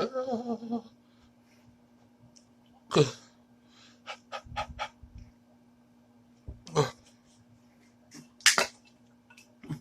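A man's involuntary reactions to the burn of a very hot chili pepper. A short voiced groan comes first, then three sharp, explosive bursts of breath, coughs or sneezes, spaced a few seconds apart. Near the middle there is a quick run of about five small clicks.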